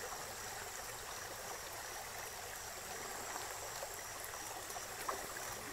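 Water rushing steadily through a narrow channel, a continuous even rush of churning water.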